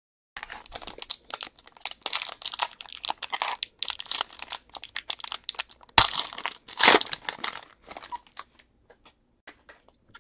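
Foil wrapper of a football trading-card pack crinkling as it is handled and torn open by hand, with a sharp crack about six seconds in and the loudest tearing just after. A few light crinkles follow near the end as the cards are slid out.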